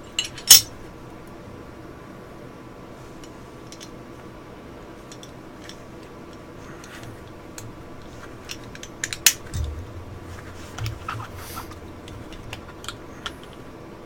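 Glock pistol parts clicking and clinking as they are handled and fitted together by hand: two sharp clicks right at the start, then a quiet stretch, then a scatter of small clicks with a dull knock from about nine seconds in.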